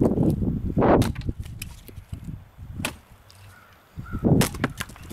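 Japanese nata garden machete chopping into a soft, punky deadfall log: three sharp blade strikes into the wood, the first amid a second of dull low knocking.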